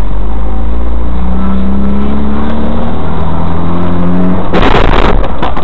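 Car engine and road noise inside a moving car, picked up by a dashcam, with a sudden loud, harsh burst of noise lasting about half a second near the end.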